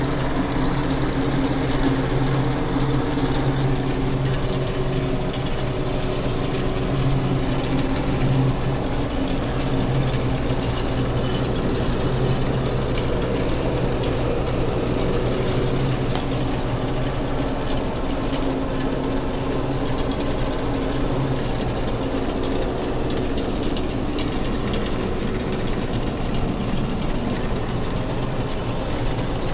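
Fortschritt E 514 combine harvester running steadily under load while harvesting grain: the diesel engine and the threshing machinery, heard from inside the cab.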